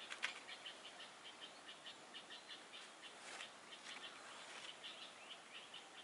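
Faint, rapid chirping from a small bird, short notes repeated evenly about four or five times a second, with one sharp click just after the start.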